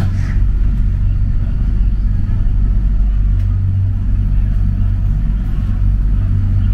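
Mitsubishi Crystal Mover C810A rubber-tyred light rail car running, heard from inside the car as a steady low rumble, with a brief click at the very start.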